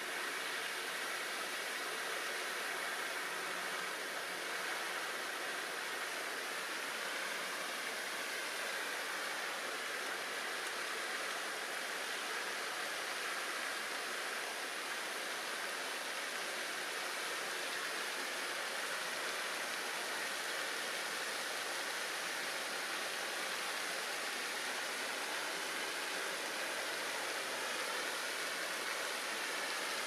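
Steady, even rushing noise of outdoor ambience, with no separate events.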